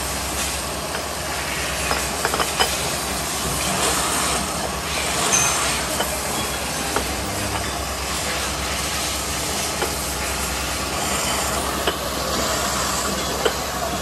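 Multi-spindle drilling machine running steadily in an aluminium workshop, with a few sharp clicks as drilled aluminium motorcycle hubs are handled.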